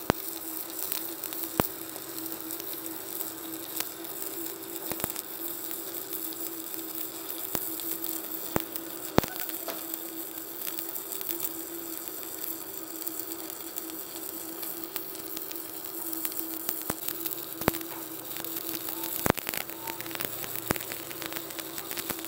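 Stick-welding arc from a Boss ARC210E inverter welder burning an electrode on 15 mm steel plate at about 150 A: a steady sizzling crackle with frequent sharp pops, over a steady hum.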